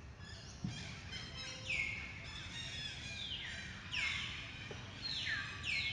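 A run of high calls, each falling quickly in pitch, some overlapping, over a steady low background rumble.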